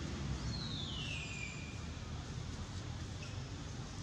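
Steady outdoor background noise with a low rumble. About half a second in, a bird gives one high whistled call that slides down in pitch and then holds briefly.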